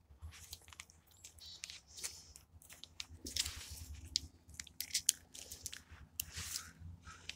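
Close-up mouth sounds of a person eating MRE cheese spread: quiet, irregular wet smacks and chewing clicks.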